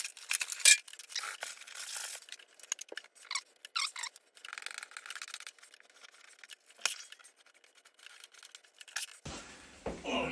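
Intermittent light clicks, scrapes and rustles of tools and materials being handled during a wall-patching job, with a sharper click about seven seconds in.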